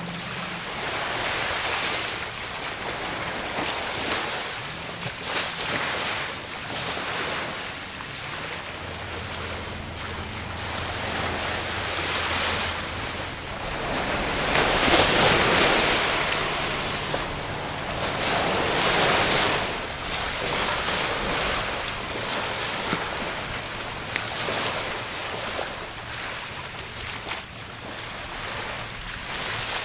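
Harbour water lapping and splashing, with wind rushing over the microphone; the rushing swells loudest about halfway through and again a few seconds later. A faint, steady low boat-engine hum runs under it for a few seconds in the first half.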